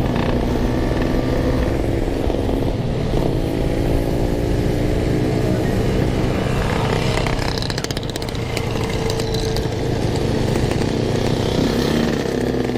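Yamaha RX-King's single-cylinder two-stroke engine running at light throttle while riding, its pitch rising and falling a little around three seconds in and then holding steady.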